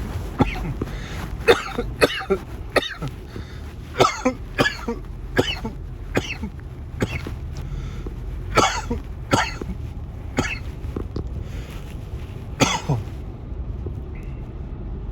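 A man's coughing fit brought on while vaping: dozens of harsh coughs in short, irregular runs, easing off about two seconds before the end.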